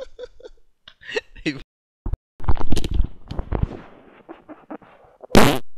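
A person farting through a bout of diarrhoea: a short pitched squeak about a second in, a longer loud sputtering burst a little later, and a sharp loud blast near the end.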